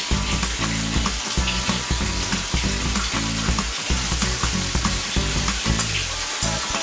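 Boiled pork belly cubes and minced garlic sizzling in a nonstick pan, with the scrape and clatter of a silicone spatula stirring them. The steady spitting shows the water still cooking off in the fat.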